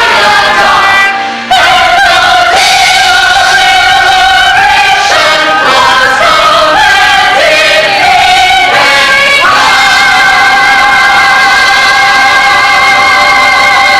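Stage musical singing with accompaniment, in an operatic aria style: a melody with a brief break about a second in, then a long held note from about two-thirds through.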